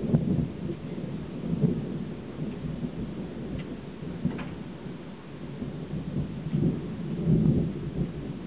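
Rolling thunder from a thunderstorm, a continuous low rumble that swells near the start and again about seven seconds in.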